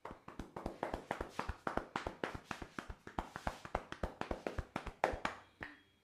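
Hands striking rapidly and rhythmically in a percussive massage (tapotement), about five sharp slaps a second. The run stops abruptly near the end, with one louder strike about five seconds in.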